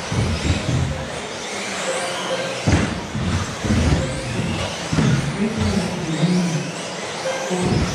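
Several 1/10-scale 2WD off-road RC buggies racing together, their electric motors whining up and down in pitch as they accelerate and brake, the whines overlapping.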